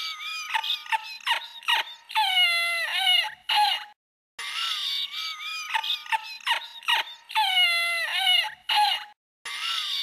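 A high-pitched, squeaky cartoon laughing sound effect: quick chirping cackles and long falling squeals. The short laugh clip plays again after a brief break about four seconds in, and starts once more near the end.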